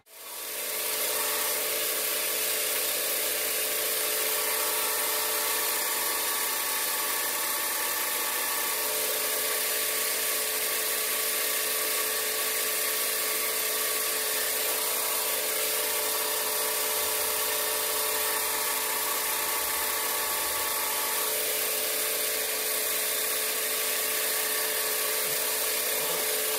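Parkside combination bench grinder and belt sander running steadily, used to take a plastic lip off a small fan's wire connector.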